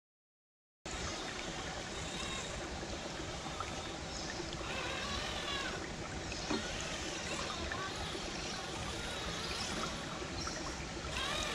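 Creek water running over rocks, a steady rushing that starts suddenly about a second in, with a few faint chirps over it.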